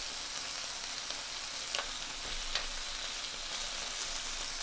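LA-style beef short ribs sizzling on an electric grill pan, a steady hiss, with a few light clicks from the tongs and scissors handling the ribs.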